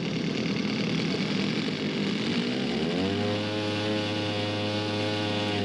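Radio-controlled scale model airplane engine running. About two and a half seconds in, it speeds up to a higher, steady pitch and holds there, easing back down near the end.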